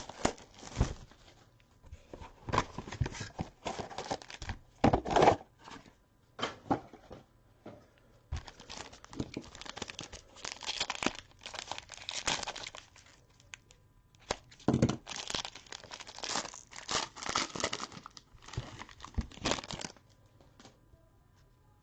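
Trading-card packaging being torn open and crinkled: irregular bursts of tearing and crackling wrapper, with quieter gaps between handfuls, stopping shortly before the end.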